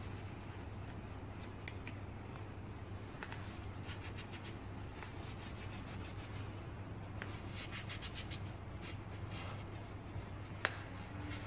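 Gloved hands wiping a motorcycle brake-fluid reservoir cap and its rubber diaphragm with a cloth: soft, scratchy rubbing strokes, most frequent in the second half, with one sharp click about a second before the end. A steady low hum runs underneath.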